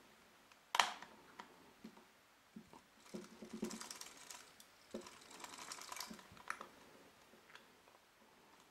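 Small plastic clicks and light creaking from the body shell of a PIKO EU07 H0 model locomotive as fingers squeeze and work at it, trying to ease the tight-fitting shell off the chassis. A sharper click comes about a second in, and a patch of faint rustling and clicking follows a few seconds later.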